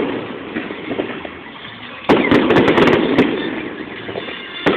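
Aerial fireworks bursting: a loud burst about two seconds in, followed by a second of sharp crackling, and another burst near the end.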